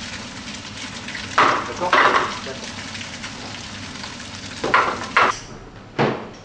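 Potato pieces sizzling in a small saucepan over a gas flame, with two pairs of louder clattering strokes as the pan is shaken and stirred, about a second in and again after four and a half seconds. The sizzle cuts off near the end and a single knock follows.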